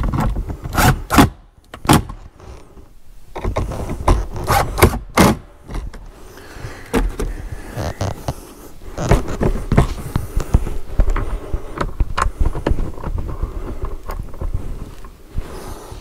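Irregular knocks, clicks and scraping of hands and a tool working at a plastic car interior trim panel while a small speaker is fitted into it, in short clusters with pauses between.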